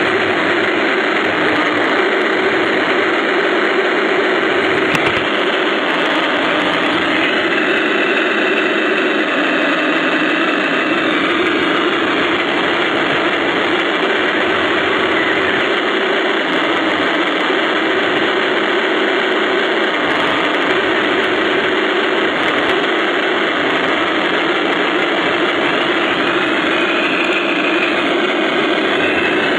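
1:16 radio-controlled Tiger I tank driving, heard from on board: a steady mechanical whir and rattle of its drive and tracks. A higher whine comes in for a few seconds about a quarter of the way in and again briefly near the end.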